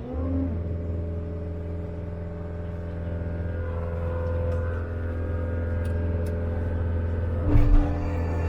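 Cat 299D compact track loader's diesel engine running steadily, with a short clatter about seven and a half seconds in.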